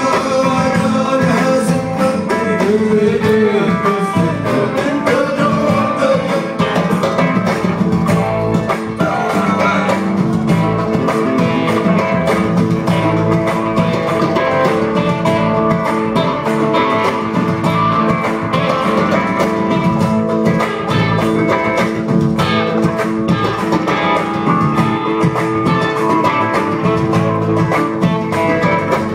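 A desert blues band playing live, loud and continuous, heard from the audience: electric guitars over a steady drum groove, with voices singing at times.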